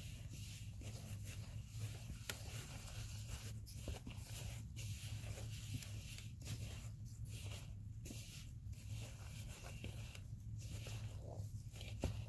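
Gloved hand kneading and squeezing crumbly, oil-dampened starch powder in a bowl: irregular soft crunching and rustling of the powder and the glove, over a steady low hum.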